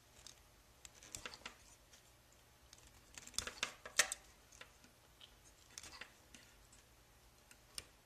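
Scissors and fingers working the end of a buzzer's thin red wire to strip its insulation: a few scattered light snips and clicks, loudest about four seconds in.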